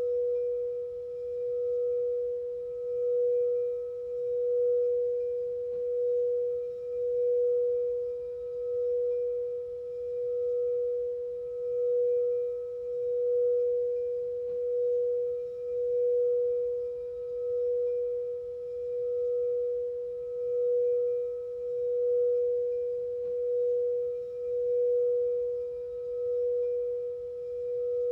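A singing bowl sustaining one steady, pure note that swells and fades about every one and a half seconds, with faint higher overtones.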